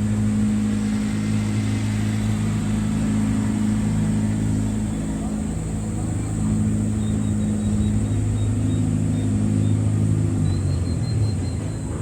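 A steady, low engine drone that dies away near the end.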